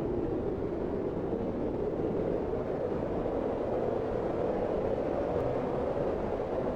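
Strong, steady snowstorm wind: a dense, low rush with no breaks and no distinct gusts.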